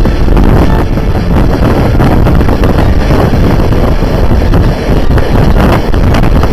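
Loud, steady wind rush buffeting the microphone at the open window of a fast-moving passenger train, mixed with the train's low running rumble.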